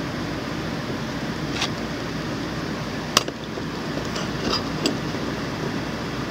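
Steady background hiss with four light clicks and taps, the loudest about three seconds in, from an eyeshadow stick being handled close to the microphone.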